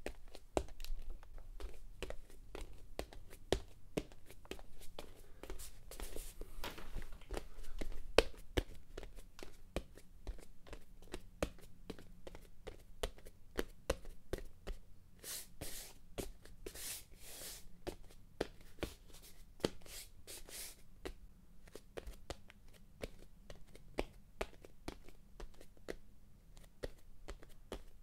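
Footsteps of a person walking: a run of irregular light taps and knocks, with a few brief rustling swishes in the middle stretch.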